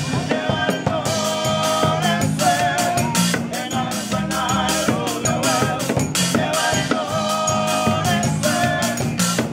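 Marimba band playing: several wooden marimbas struck with mallets in a rhythmic groove, a triangle ringing, and male voices singing together in phrases over the top.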